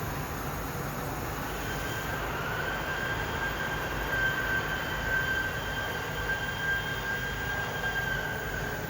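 5-axis CNC router running, a steady high whine over a broad machining noise. The whine rises a little about two seconds in and falls away near the end.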